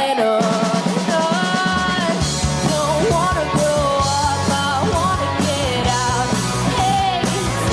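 Punk-rock band playing live, with guitars, bass and drums under a wavering melodic line. The drums and bass kick in about half a second in.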